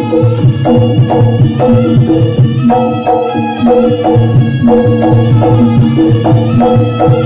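Javanese kendang, a double-headed wooden barrel drum, hand-drummed in a steady beat of about two strokes a second. It plays over ringing bronze gamelan notes from gongs and gong-chimes, as jaranan accompaniment.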